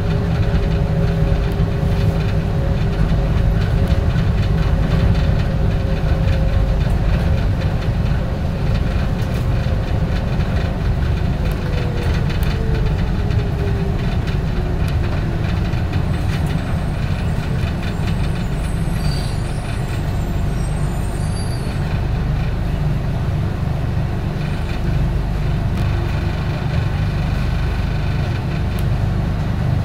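Bombardier Innovia APM 100 light-rail car running along its guideway on rubber tyres, with a heavy steady rumble. A whining tone above the rumble falls in pitch about halfway through.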